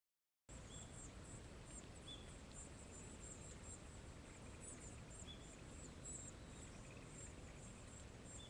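Faint outdoor ambience: a steady hiss with a light low rumble, dotted with many thin, very high chirps and a few lower single chirps. It starts suddenly about half a second in.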